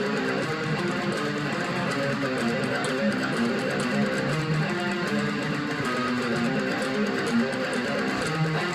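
Guitar music, strummed chords with changing notes and a steady level.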